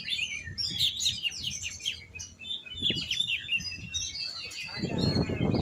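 Oriental magpie-robin (kacer) singing a fast, varied run of chirps and whistles. Low thumps sound underneath, and a rustling rumble rises near the end.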